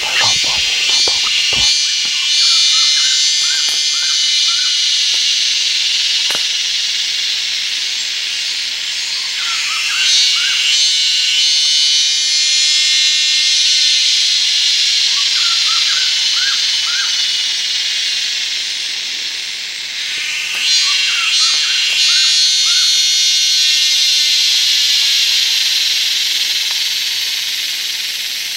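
Loud, shrill insect chorus that swells and fades in long waves, about every ten seconds. Small groups of short chirping calls repeat every few seconds underneath. A few clicks come near the start.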